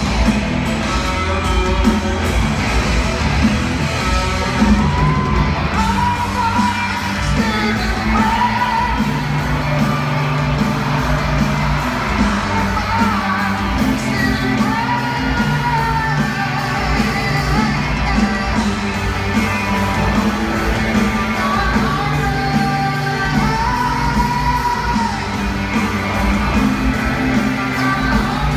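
Live rock band playing, a man singing long held phrases that rise and fall over guitars, bass and drums, with the echo of a large hall.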